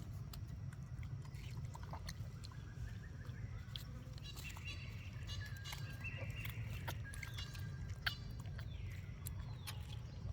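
High-pitched squeaking calls of a baby monkey, coming in several short runs from about four seconds in, over a steady low rumble with scattered clicks and rustles.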